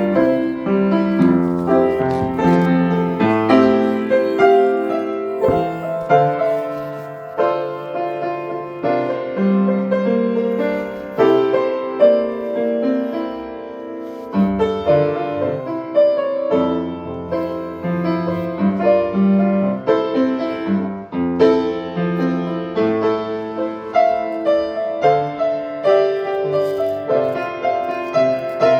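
Piano being played: a continuous run of chords and melody notes without a break.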